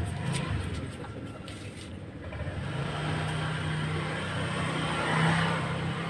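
Motor vehicle engine running nearby with a steady low hum that swells briefly about five seconds in, over a low street rumble.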